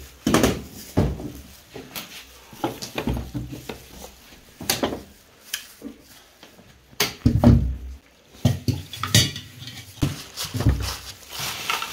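Irregular knocks, clunks and clinks of metal objects, among them a rifle, being pulled out from a bed base and handled on a hard floor.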